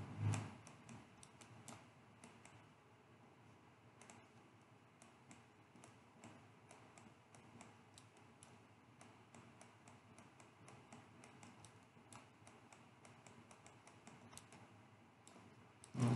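Faint, irregular clicking of a computer mouse and keyboard, several clicks a second, over a quiet room hiss.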